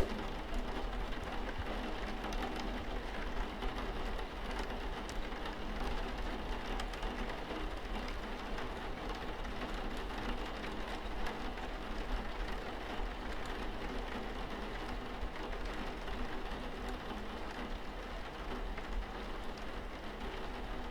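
Steady rain falling, an even wash with scattered faint drop ticks.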